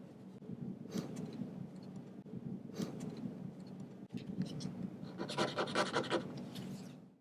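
Scratcher rubbed rapidly back and forth across a scratch-and-sniff card: a quick run of scratching strokes a little past the middle, after a few faint clicks.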